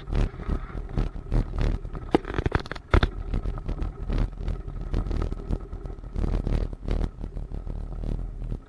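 Jeep driving along a gravel dirt track, heard from a dash camera inside the vehicle: a steady low engine and road drone with frequent knocks and rattles as it bumps over the gravel.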